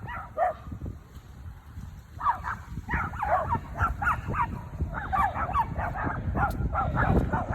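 Dogs barking and yipping in quick bursts of short calls, starting about two seconds in.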